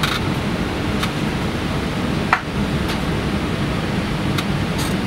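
Steady rushing cabin noise inside an Airbus A380 airliner, the even hiss of air conditioning and aircraft noise, with a few faint clicks, the sharpest about halfway through.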